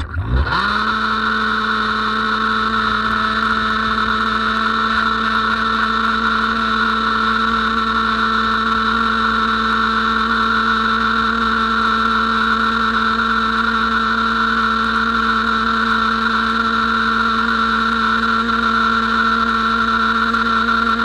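SUNGOLDPOWER 2200 W electric pressure washer's motor and pump spinning up quickly as the spray-gun trigger is pulled, then running steadily under load with a whine while the jet sprays water onto paving stones.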